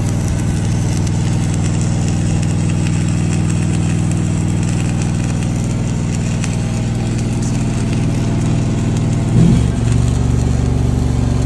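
An engine running steadily at a constant speed, its pitch and level shifting up about nine and a half seconds in.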